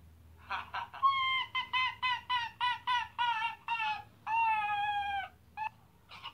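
Small white pet animal calling in a rapid run of short, high, yelping calls, about three or four a second, then one long drawn-out call that dips in pitch at its end.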